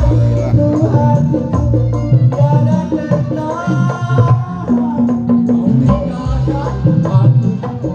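Live band music with hand-drum percussion, a steady bass line and a melodic lead that bends in pitch.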